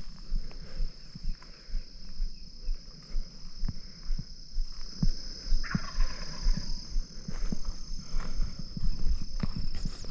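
Footsteps and leafy-suit rustling in dry grass and brush as a hunter walks, with a steady high insect trill behind. About six seconds in, an Osceola wild turkey gobbles once in the distance.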